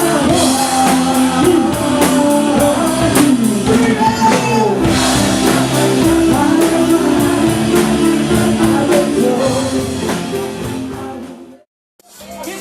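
Rock song with singing, guitar and drums, which fades out near the end; after a moment of silence another piece of music begins.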